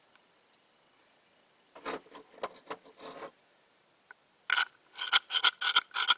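Ramrod rubbing and scraping in a small cannon's barrel, pushing tissue packing down onto the ball. A few scrapes about two seconds in, then from about four and a half seconds a quick run of short strokes, about five a second.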